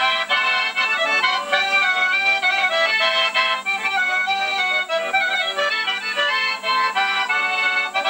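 Accordion played live: a quick tune of many short notes in a steady rhythm. The recording is thin, with no deep bass.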